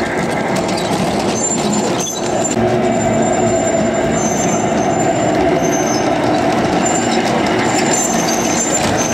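Large-scale model train of Percy the Small Engine running on the layout track: a steady electric motor whine with wheels rumbling over the rails, and short high-pitched squeaks now and then.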